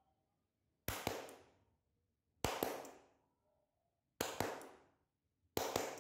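Hand claps in quick pairs: four double claps about a second and a half apart, each with a short ring after it. These are the clap signals for a sound-sensor switch to turn a light bulb on or off.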